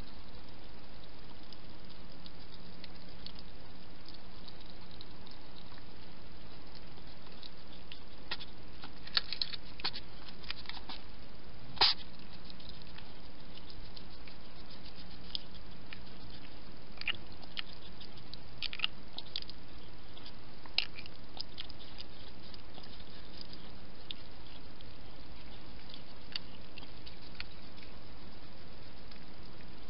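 Wild hedgehogs moving and foraging around a garden feeding station: scattered small clicks and crackles, the sharpest about twelve seconds in, over a steady hiss with a faint low hum.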